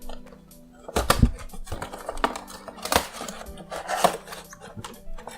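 Cardboard box being opened and handled by hand, with irregular crackling, rustling and sharp clicks of cardboard and a plastic clamshell insert, and a heavy thump about a second in. Soft background music runs underneath.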